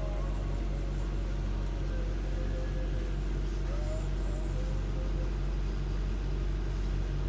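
A sailing yacht's inboard engine running steadily under way, a constant low drone. A few faint gliding high tones come and go over it near the start and about four seconds in.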